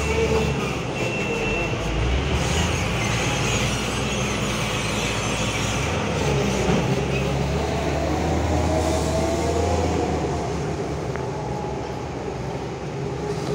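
Diesel engine of an empty container handler running as the machine pulls away, with a thin high whine for the first couple of seconds and a wavering whine that rises and falls about halfway through.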